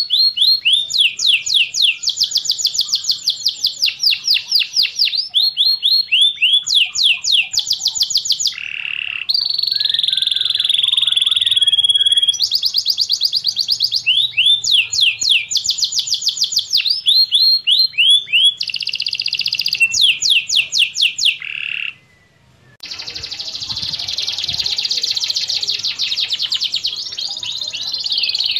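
Domestic canary singing: fast rolls of rapidly repeated downward-sweeping notes, strung together in phrases, with a steadier held note about ten seconds in. The song breaks off briefly about 22 seconds in, then resumes as a denser, continuous roll.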